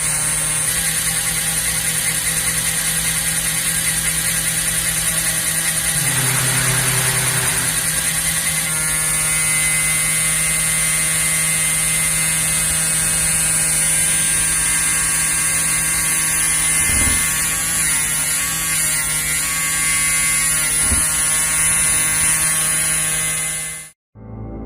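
Servo motor making an abnormal steady whining hum, a high-pitched whine over a lower drone, with an extra lower tone briefly about six seconds in. The noise comes from motor vibration in a servo-driven timing-belt axis that is faulting.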